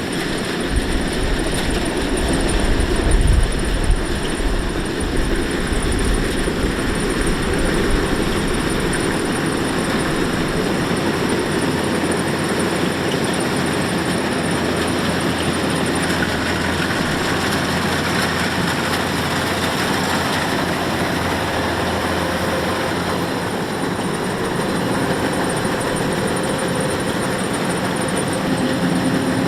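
Kubota DC-105X combine harvester running steadily with a continuous mechanical din, heavier in the low rumble for the first several seconds.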